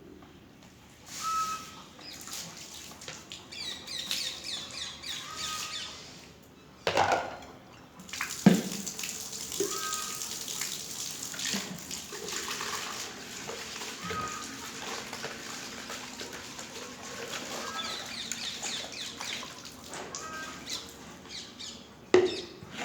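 Young chicks peeping in short high chirps, and from about eight seconds in water running steadily from a tap, as poultry drinkers are washed and filled, with a couple of knocks just before.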